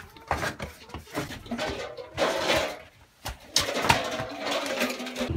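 Hens clucking in the coop amid a string of short knocks and clatters from a metal basin being handled, with a louder noisy stretch about two seconds in and sharp knocks near the end.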